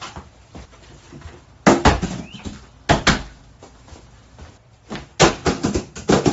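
Several sharp thumps and bangs: cardboard parcels being dropped and thrown onto a porch floor and against a front door. There is one hit about two seconds in, another about a second later, and a quick cluster of hits near the end.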